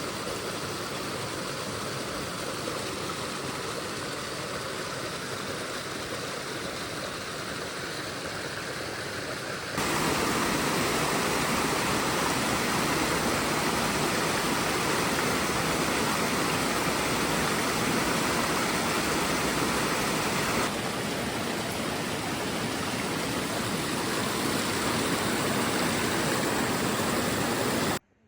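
Steady rush of fast-flowing water. It jumps louder abruptly about ten seconds in, eases slightly about twenty seconds in, and cuts off just before the end.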